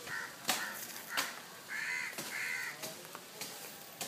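Crow cawing: a few harsh calls, the two loudest back to back near the middle, with a few sharp knocks in between.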